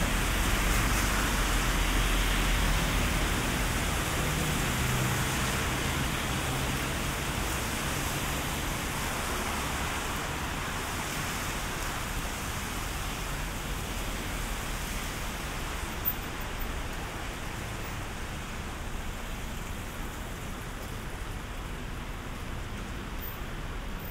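Steady rain hissing on the street, slowly getting a little quieter, with a low rumble in the first few seconds and a single sharp click about two-thirds of the way through.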